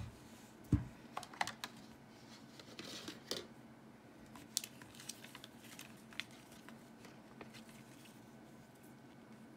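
Cardboard packaging and paper inserts being handled: one dull thump about a second in, then scattered light clicks, taps and soft paper rustling as the card box compartments are opened and a warranty card and leaflets are picked out.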